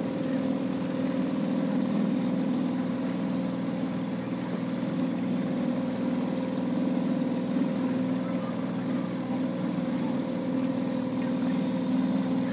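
Outboard motor running steadily, heard from aboard the motorboat.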